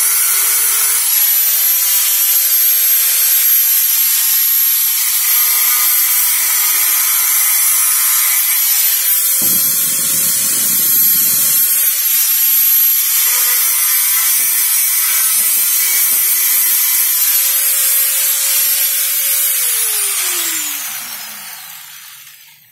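Handheld electric angle grinder running with a high steady whine, its disc grinding down the broken choke post on a chainsaw body until the stub is flat, with heavier grinding contact about ten seconds in. Near the end it is switched off and its whine falls in pitch as it spins down.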